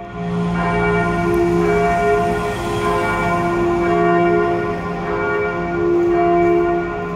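A single church bell tuned to f′, bell 1 of St. Albertus-Magnus church in Heidelberg, ringing on its own. Its clapper strikes again and again, about every one to two seconds, and each stroke's deep hum and higher overtones ring on into the next.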